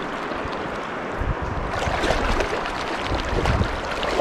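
Rushing river water, with wind buffeting the microphone from about a second in.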